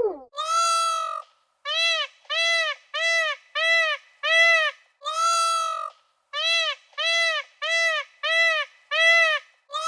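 A goose honking over and over in a regular series of nasal calls, each rising and falling in pitch. Most come about two a second, with a few longer, drawn-out honks among them.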